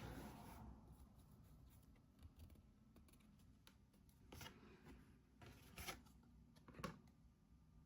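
Near silence with a few faint, brief rustles of oversized trading cards being handled and slid against each other, mostly in the second half.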